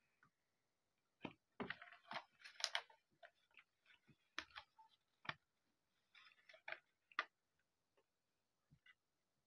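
Quiet handling noises: scattered light clicks and taps of small toy parts on a desk cutting mat, with short rustles of a paper instruction sheet. There are two busier clusters, about two seconds in and again around seven seconds, with single clicks between them.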